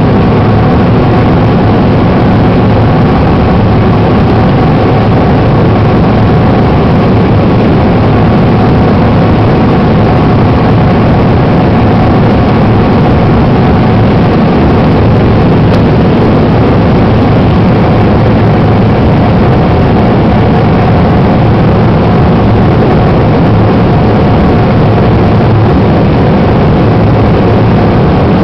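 Steady jet-engine and airflow noise inside an airliner cabin as the plane climbs after takeoff, an even rush with a few faint steady hum tones under it.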